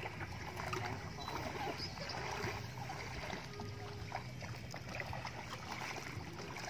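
Shallow water splashing and trickling around wading legs, with faint distant voices.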